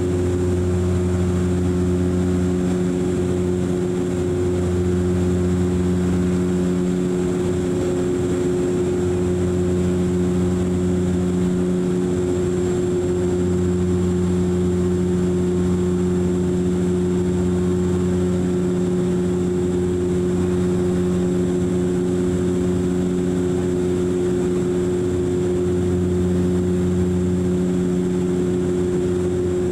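Cabin drone of a DHC-8 Q400's twin Pratt & Whitney PW150A turboprops and six-blade propellers in climb after takeoff: a steady low hum with a few higher tones above it, the low hum swelling and fading every few seconds.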